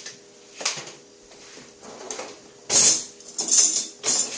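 Scattered knocks and rattles of kitchen items being handled and set down, the loudest clatter about three seconds in, over a faint steady hum.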